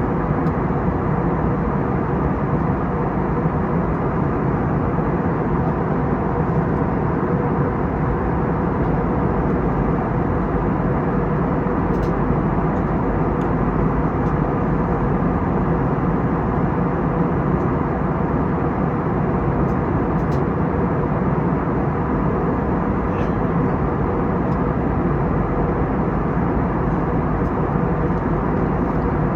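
Steady cabin noise of an Airbus A321neo airliner, its engines and the airflow making an even, unchanging rumble with a faint steady hum in it, heard from inside the passenger cabin.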